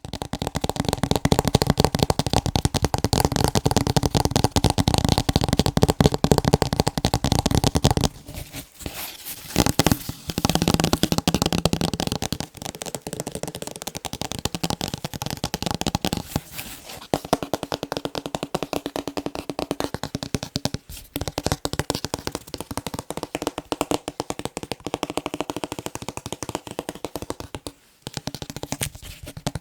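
Fast, continuous tapping on picture frames, a dense patter of quick taps with a ringing tone from the frames. It breaks off briefly about eight seconds in, and its tone changes a few times.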